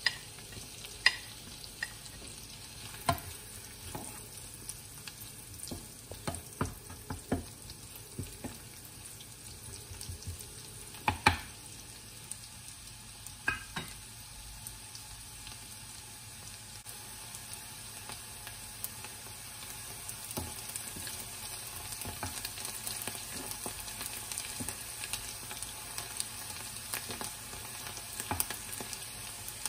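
Minced garlic and shiitake mushrooms sizzling in melted butter in a pan as they are sautéed toward golden brown. Sharp clacks of a stirring utensil against the pan come now and then in the first half, and the sizzle grows a little louder in the second half.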